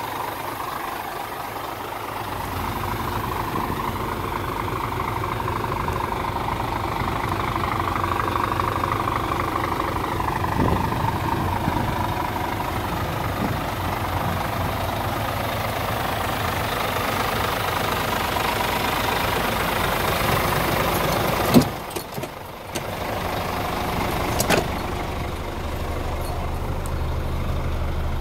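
Scania P410 truck's 13-litre inline-six diesel idling steadily. Two sharp knocks come about three seconds apart in the last third, the first the loudest.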